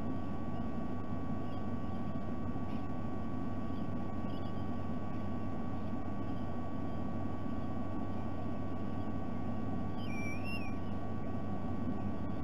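Steady low rumble and electrical hum from the nest camera's microphone, with a faint constant high whine. Near the end comes one short wavering bird call.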